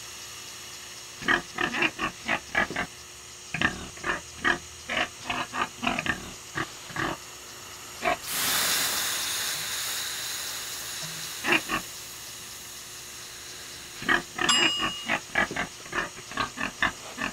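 A pig grunting in quick runs of short grunts. About eight seconds in, water thrown on hot sauna stones sets off a loud hiss of steam that slowly dies away, and the grunting starts again near the end.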